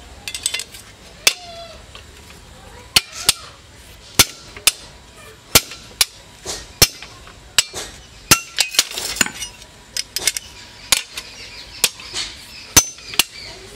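Sharp metallic clinks and knocks of steel on steel, about twenty at irregular spacing, each ringing briefly, as a sword blade is clamped and levered in a hand jig on a railway-rail anvil.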